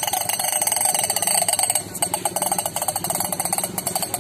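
Wheeled plastic push toy clattering with a rapid, even run of clicks as it is pushed along, breaking off briefly about two seconds in.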